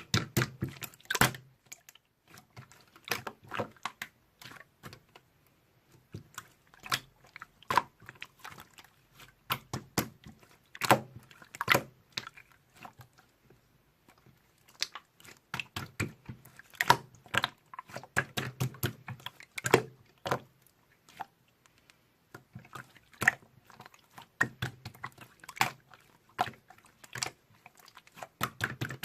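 Slime being squeezed, pressed and stretched by hand, giving irregular wet clicks, pops and squelches in uneven clusters with short pauses between.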